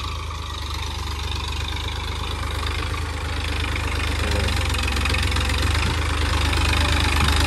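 Farm tractor's diesel engine running steadily as it pulls a tined cultivator through the field, a low even hum that grows gradually louder.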